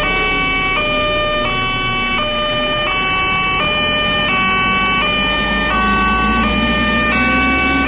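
Railway level-crossing warning alarm from the loudspeaker on the crossbuck pole. It is an electronic two-tone signal that switches between a higher and a lower chord about every three-quarters of a second, sounding with the barrier down to warn that a train is approaching. A low drone rises in pitch near the end.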